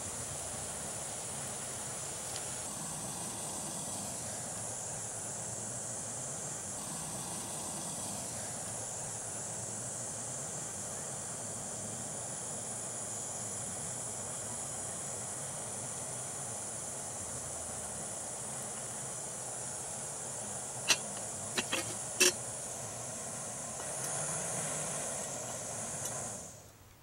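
Small backpacking gas stove, a screw-on burner on a gas canister, burning with a steady hiss under a cup of water. A few sharp clicks a little past the two-thirds mark, and the hiss cuts off just before the end.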